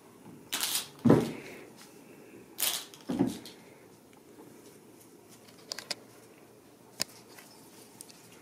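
Ragdoll kittens playing with a ball on a rug: two quick scuffles, each followed by a dull thud, within the first few seconds, then a few light clicks and one sharp tick about seven seconds in.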